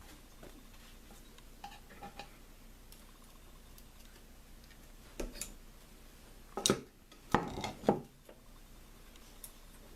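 Small steel parts clinking and tapping inside a Dana 35 differential as a C-clip is guided into place on the axle with a magnet. A few faint clicks come first, then a cluster of louder metallic clinks and knocks from about five to eight seconds in.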